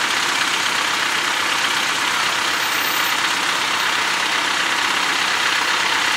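Heavy vehicle's diesel engine idling steadily, with no revving.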